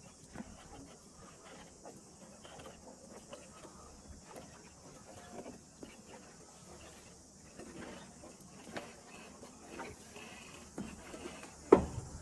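Footsteps on the wooden walkway of a treetop walk: scattered light knocks and creaks, then two heavier footfalls near the end.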